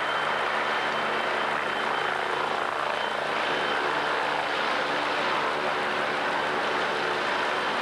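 A helicopter flying low overhead, giving a steady rotor and engine noise, mixed with the engines of heavy vehicles close by.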